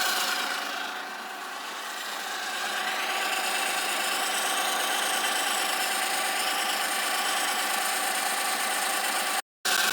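Smart car engine running with a steady noise from the top of the engine at the timing chain guide (chain pad): the sign of a broken timing chain guide. The sound drops out briefly near the end.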